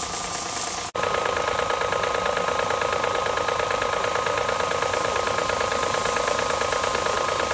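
An electric pressure washer's motor and pump running for about the first second, then, after a cut, a louder steady mechanical drone with a fast, even rattle from a street-cleaning water-spray truck.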